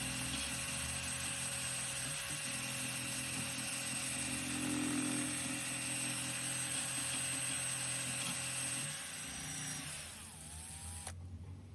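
Small electric power tool motor running steadily, then dropping away about nine seconds in and stopping near the end.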